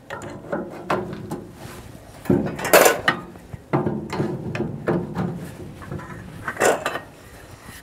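Metal legs of a portable mangal rotisserie grill being pushed into their sockets by hand, giving several knocks and clanks with rubbing and scraping between them. The loudest knocks come about three seconds in and near the end.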